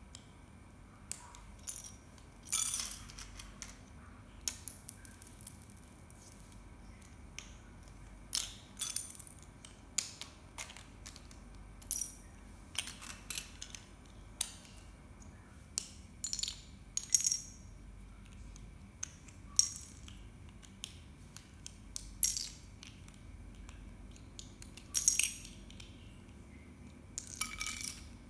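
Plastic Lego bricks clicking and snapping as they are pulled apart and handled, with small pieces clattering onto a tiled floor. The clicks come irregularly, one at a time or in quick clusters.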